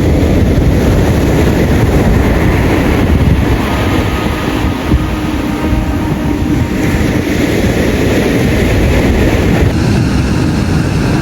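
Steady, loud rumbling of a vehicle in motion, with a faint hum running through it.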